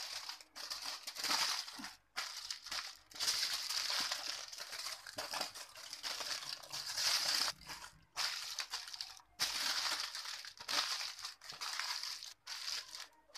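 Aluminium foil crinkling as hands fold and crimp the edges of a foil packet shut, in irregular stretches broken by brief pauses.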